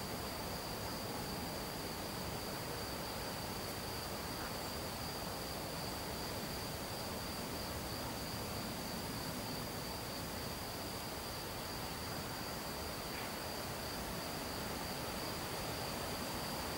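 An insect trilling steadily and without a break at one high pitch, over a constant background hiss.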